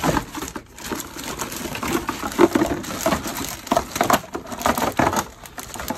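Clear plastic bag crinkling and crackling as a hard plastic toy throne is pulled out of it, with irregular rustles and small clicks throughout.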